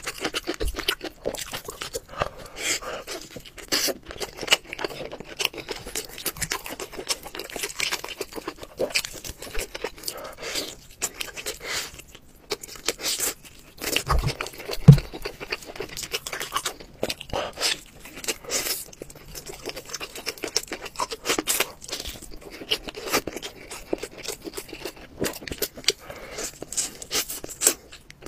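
Close-miked eating of crab: shell crunching and tearing, and chewing, heard as a dense run of irregular crackles and clicks. One heavy low thump about fifteen seconds in.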